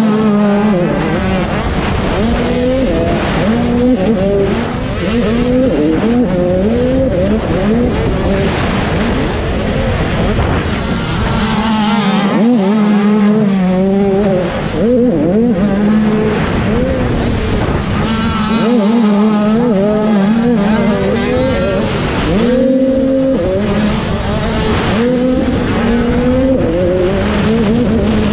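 Dirt bike engine heard up close from on the bike, revving up and down again and again as the throttle is worked through corners and jumps. The throttle is briefly cut twice, about twelve and nineteen seconds in.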